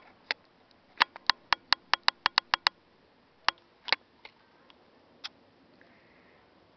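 A quick run of about ten sharp clicks close to the microphone, starting about a second in, then a few scattered single clicks.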